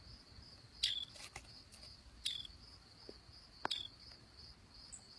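Crickets chirring steadily in a high, pulsing band, with a handful of short sharp clicks over it, the loudest about a second in and near four seconds.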